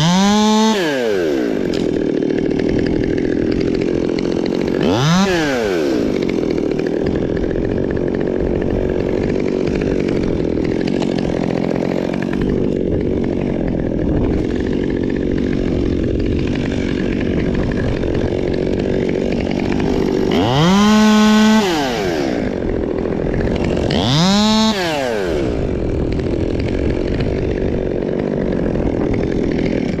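Top-handle chainsaw ticking over between cuts. Its revs drop away at the start, blip up once a few seconds in, and twice near the end rise to full revs for about a second before falling back to idle.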